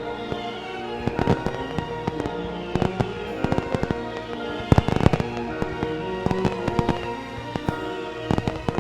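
Fireworks going off in a string of sharp bangs over orchestral-style music, the bangs thickest about five seconds in.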